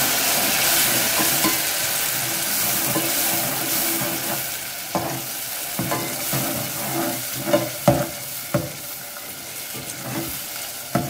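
Ground tomato paste sizzling and spitting in hot oil with fried garlic paste, the hiss easing off after a few seconds. A slotted metal spoon stirring it knocks and scrapes against the metal pot several times in the second half.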